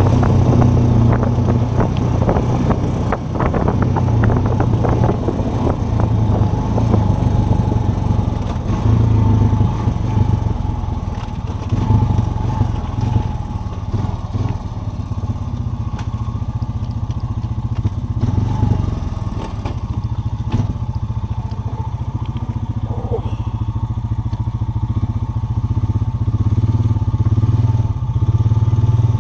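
Off-road vehicle engine running steadily as it rides a rough trail, with rattling and crunching over the ground during the first several seconds.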